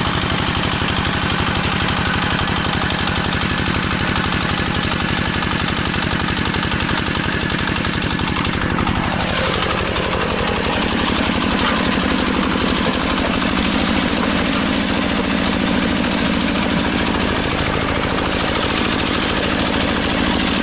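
Heavy walk-behind tractor (motoblock) engine running steadily under load as its rotary tiller mills the soil. About halfway in the sound shifts, with a stronger, lower engine note.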